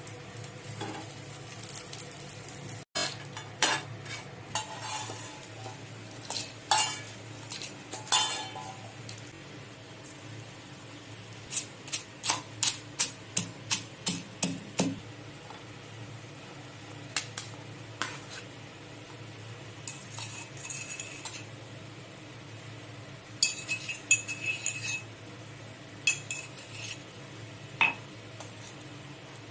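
Kitchen utensils clinking and knocking against dishes, with a run of about a dozen quick, even taps midway and a few ringing clinks later, over a steady low hum.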